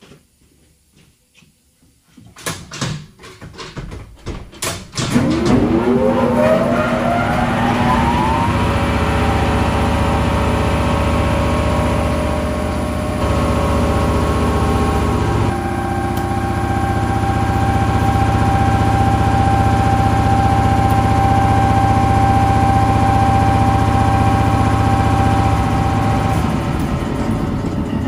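A few knocks and clatters, then an electric shop air compressor starts with a rising whine about five seconds in, runs steadily and loud for about twenty seconds, and stops near the end.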